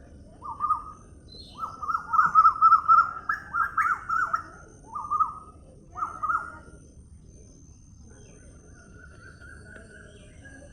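A bird calling: a series of quick, warbling chirps, in short groups and one longer run, then a fainter thin whistling note near the end.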